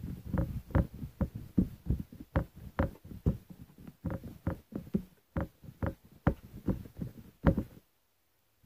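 Homemade slime being squeezed and kneaded by hand, giving a quick irregular run of wet pops and squelches, about two to three a second, that stops shortly before the end.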